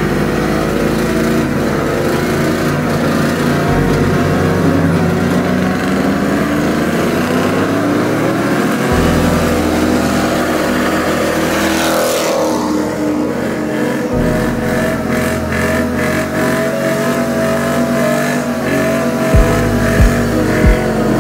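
Pickup trucks doing burnouts: engines revving hard with tyres spinning. Underneath runs music with a deep bass line, and a steady kick-drum beat comes in near the end.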